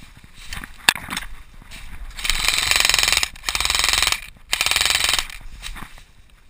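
Airsoft rifle firing three long full-auto bursts in quick succession, a fast rattle of shots. A single sharp click comes just before, about a second in.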